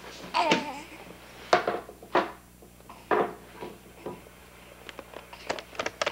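Camcorder handling noise: a series of sharp knocks and rubs as the camera is moved and gripped, with a brief wavering squeak about half a second in.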